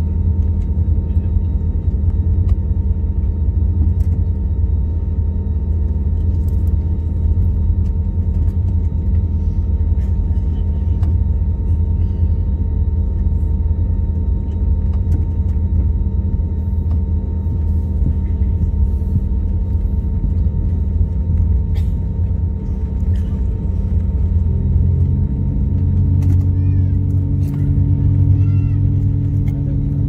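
Airbus A321neo cabin during taxi: a steady low rumble of the jet engines and rolling gear, with several steady hums. About 25 seconds in, a new, lower hum comes in and the rumble grows a little louder.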